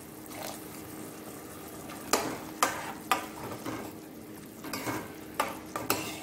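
Steel spoon stirring a thick, simmering chickpea curry in a nonstick kadhai, scraping and knocking against the pan about six times from about two seconds in, over a gentle sizzle and a steady low hum.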